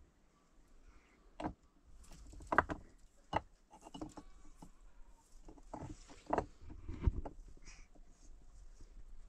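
Irregular sharp knocks, about six spread over several seconds and the loudest a few seconds in, with faint rustling between them: objects being handled or struck.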